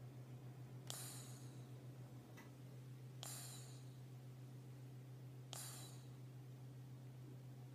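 A cat snoring faintly in its sleep: a short hissing breath that fades out, repeating about every two seconds, four times in all. Under it runs a steady low hum.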